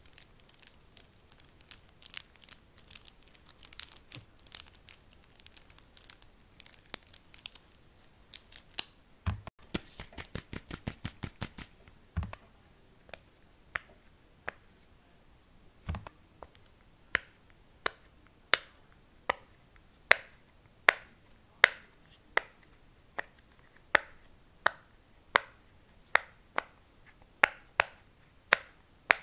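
Fidget toy being clicked and handled: quick sharp clicks and crinkling at first, then a fast rattle of clicks about nine seconds in. After that come single sharp clicks with a short ring, a little more than one a second, growing louder.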